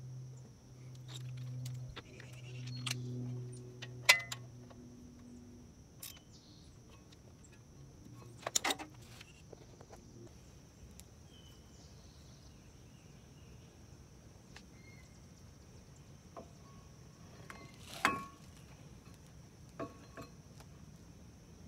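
Scattered sharp metallic clinks and knocks from brake parts being handled at a car's front wheel hub, the loudest about four, nine and eighteen seconds in, over a steady high insect drone. A low hum fades out in the first few seconds.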